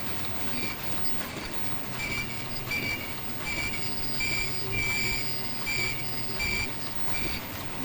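Automatic flat 3-ply mask making machine running: a steady low mechanical hum with a short, high-pitched squeal repeating about three times every two seconds as it cycles.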